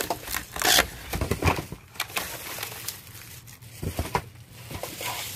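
Cardboard and hard plastic packaging being handled: rustling, scraping and a few knocks as blister-packed knife sets are pulled out of a cardboard carton.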